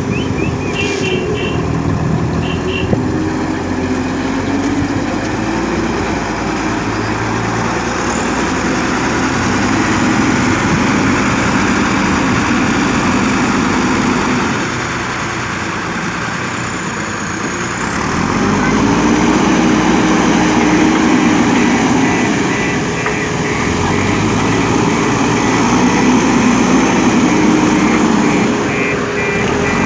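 JCB 3DX backhoe loader's diesel engine running under work, its speed rising and falling several times as the machine works the soil.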